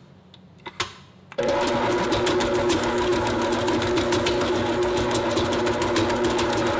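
Stand mixer switching on about a second and a half in, after two short clicks, and running steadily at medium speed with its dough hook kneading bread dough: a motor hum with rapid ticking over it.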